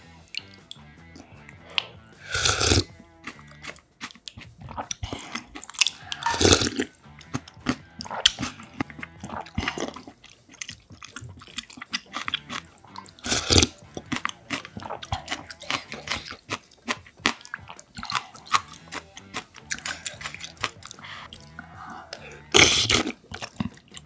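Close-miked eating sounds: a spoon clicking against a glass bowl of beef-bone rice-cake dumpling soup, four loud slurps of broth sipped from the spoon, and chewing between them. Background music runs underneath.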